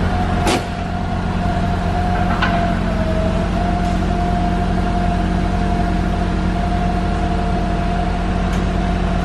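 Forklift engine running with a steady hydraulic whine as the forks lift a Jeep's front wheel to flex its suspension. A couple of sharp clicks sound about half a second and two and a half seconds in.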